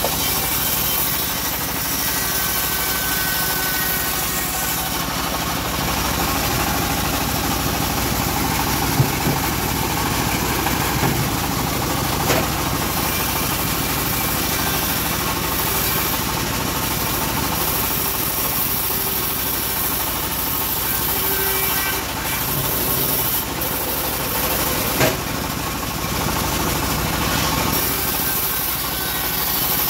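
Homemade bandsaw mill running steadily with a continuous machine drone as teak boards are ripped through the blade. A few short knocks break through, the sharpest about nine seconds in and another near the end.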